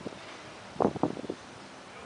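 Irregular short knocks and taps, a quick cluster of them about a second in, over steady wind noise on the microphone.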